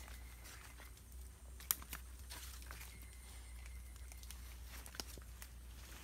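Wild boars stepping and rooting through dry leaf litter and twigs: scattered rustling and crackling with sharp snaps, the loudest about a second and a half in and another about five seconds in, over a steady low hum.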